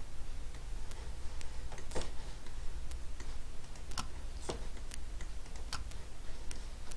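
Irregular clicks of a computer mouse and keyboard, a dozen or so sharp ticks scattered unevenly, over a low steady hum.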